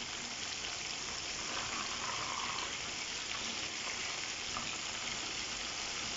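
Battered pieces deep-frying in a wok of hot oil: a steady, even sizzle.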